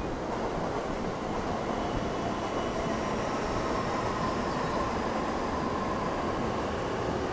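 A coupled JR East E233 and E231 series electric commuter train pulling out of the station, passing close by with a steady rumble of wheels and running gear. A faint whine rises slowly in pitch as it gathers speed.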